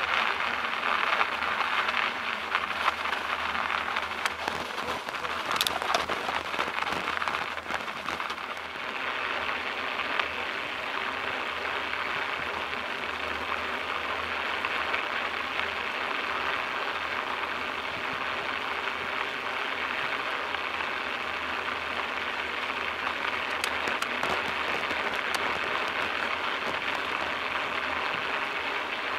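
Steady rushing noise of a bicycle ride along a snow-covered road: wind over the action camera's microphone mixed with tyres rolling on packed snow. It is rougher, with scattered clicks, for the first eight seconds or so, then turns to an even hiss.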